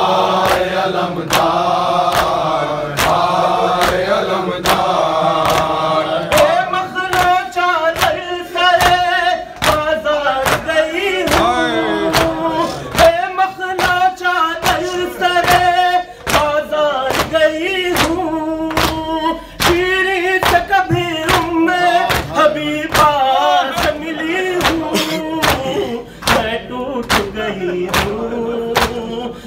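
Male voices singing a noha lament, with a chorus holding the line for about the first six seconds and then a lead voice carrying the melody. A steady beat of sharp strikes, roughly two a second, runs underneath.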